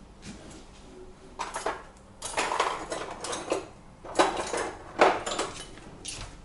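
Metal kitchen utensils clinking and clattering in several bursts as a garlic press is fetched from among them.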